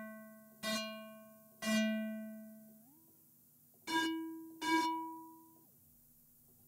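Ableton Live's Resonators effect ringing on short bursts of noise: five plucked-string-like notes, each a brief hiss followed by a decaying pitched tone. About three seconds in, the pitch slides up a fifth, from A3 to E4, and the last two notes ring at the higher pitch. Constant decay is switched off, so the higher resonance dies away faster.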